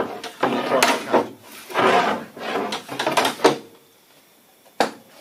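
Wooden crosscut sled sliding back and forth on a table saw, three scraping strokes in a row, then a single sharp knock near the end.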